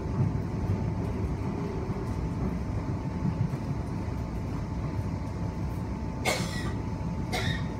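Inside an electric suburban train running along the line: a steady rumble of wheels on track under a constant thin hum. Two sharp clacks come near the end, about a second apart.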